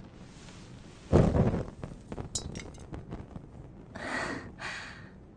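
Anime sound effects of amber set alight by a dropped match: a sudden loud whoosh of flame about a second in, then a bright ringing clink, and two softer hissing swells of fire near the end.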